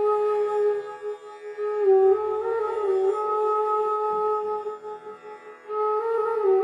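Meditation music: a slow flute-like melody of long held notes that step up and down in pitch, over a faint low drone.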